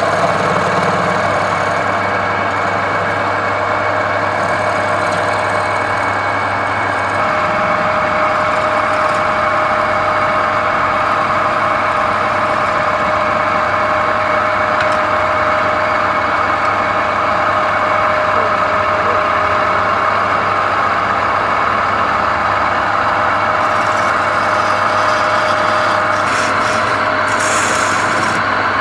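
Woodturning lathe running steadily with a constant motor hum. A rougher, scraping noise comes in near the end.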